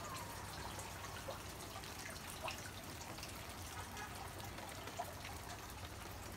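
Water trickling steadily, with irregular small drips.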